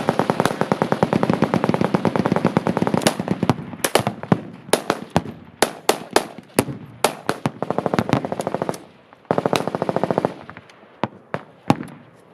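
Several machine guns firing on full auto, long rapid bursts overlapping with scattered single shots. The fire is densest over the first three seconds; another long rapid burst comes about two-thirds of the way through.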